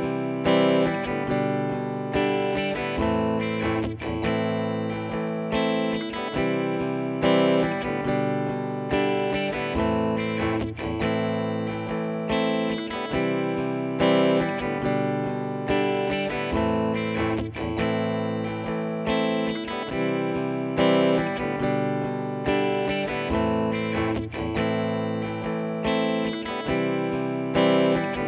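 Background music: a guitar-led instrumental with electric guitar and a steady rhythm.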